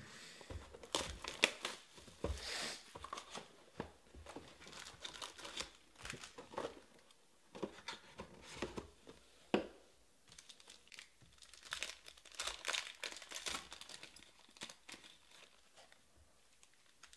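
Foil trading-card packs crinkling and the cardboard of a 2020 Panini Prizm Baseball hobby box rustling and tearing as the box is opened and its packs are taken out. The rustles and crackles come in irregular handling bursts.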